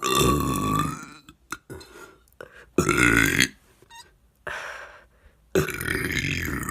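A woman burping: three long, deliberate burps, the first lasting about a second, a shorter one about three seconds in, and a third starting near the end and still going.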